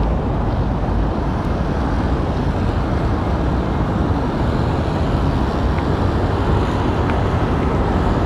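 Steady rushing noise from a moving bicycle on a city road: wind buffeting the microphone, mixed with the hum of surrounding motor traffic.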